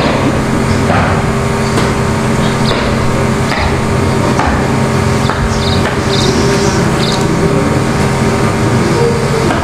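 Steady hum from a public-address system, with scattered light knocks and clicks.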